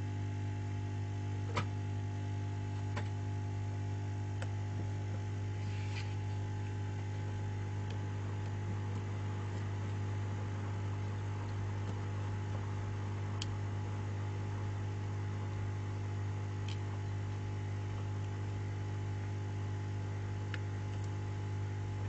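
Steady electrical hum with a few faint, scattered clicks from small parts being handled during phone repair.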